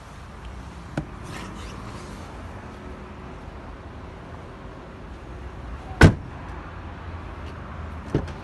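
Seat Ibiza's door latch clicking open about a second in, then a car door shut with one solid slam about six seconds in, and a lighter knock near the end, over a steady low rumble.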